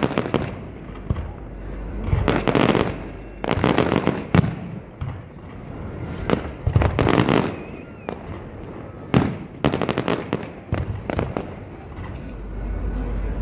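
Aerial firework shells bursting in an irregular string of sharp bangs, several coming in quick clusters, with crackling between the reports.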